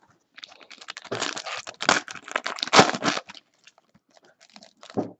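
Foil wrapper of a Panini Court Kings basketball card pack being torn open by hand: crinkling and tearing for about three seconds, then a short crinkle near the end.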